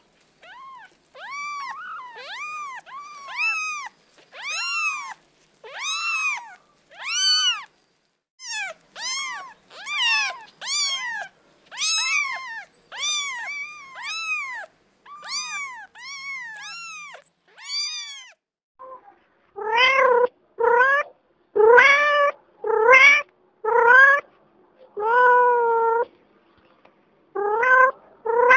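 Kitten mewing: a long run of short, high-pitched mews, one after another, a little over one a second. About two-thirds of the way in these give way to an adult cat meowing, lower and louder, at about the same pace.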